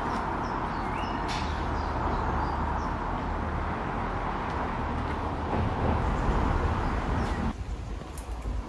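Outdoor city street ambience: a steady hum of traffic, with a few short bird chirps about a second in. The sound drops quieter about seven and a half seconds in.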